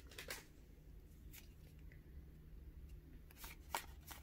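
Faint soft ticks and slides of trading cards being flipped through by hand, over a low steady room hum.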